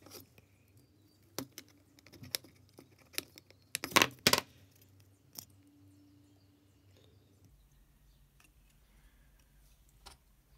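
Light clicks and taps of a small circuit board and its parts being handled and knocked on a desk, with a cluster of sharper clicks about four seconds in; quiet from about five and a half seconds on.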